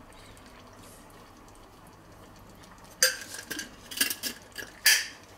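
Kitchen utensils clinking against dishes: after about three seconds of quiet, a run of five or six sharp clinks and clatters, irregularly spaced.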